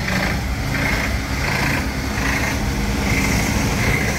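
A motor vehicle's engine runs steadily with a low hum. A soft hiss pulses over it about every three quarters of a second.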